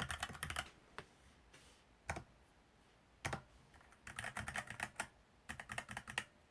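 Keys being typed on a Varmilo keyboard with Sakura pink electro-capacitive (EC) switches: a quick run of keystrokes, then three single key presses spaced about a second apart, then two more quick runs of typing near the end.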